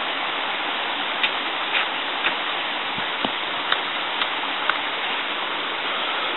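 Steady rushing of running water, like a mountain stream, with a few light clicks and taps in the middle stretch.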